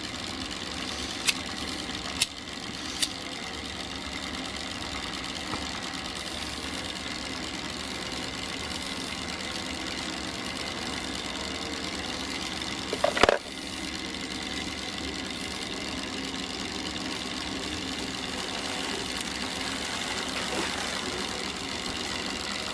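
A steady mechanical running noise throughout, with three sharp clicks in the first few seconds from a lighter being struck to light wood-wool firelighters. About thirteen seconds in comes a brief, louder clatter of lumps of coal being handled.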